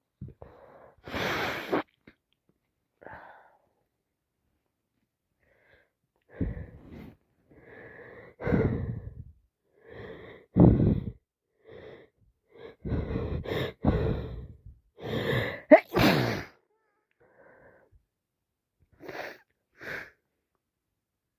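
A person with a heavy, congested head cold sneezing, sniffing and blowing her nose. A few short bursts, then about six seconds in a dense run of loud bursts for about ten seconds, with sharp peaks near the end of it, then a few faint sniffs.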